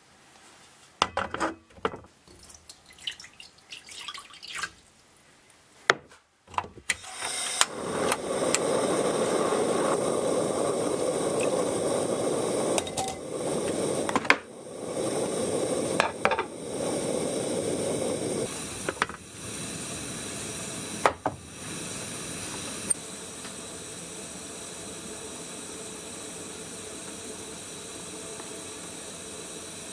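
A few sharp clicks and knocks in the first seconds. Then water with oysters heating in a pot on a gas stove, bubbling as it comes to a boil. The bubbling is loudest in the middle and settles into a steady, quieter hiss near the end.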